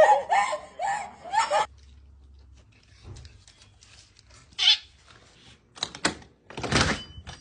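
A duckling peeping: a quick run of short, high, arching cheeps for the first second and a half or so. Then it goes quiet apart from one short high cry near the middle, and a few sharp knocks and a rustling burst near the end.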